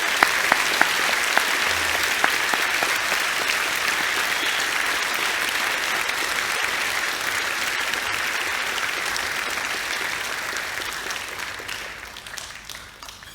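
Audience applauding in a hall: sustained clapping that begins with a few sharp individual claps standing out, holds steady, then fades away near the end.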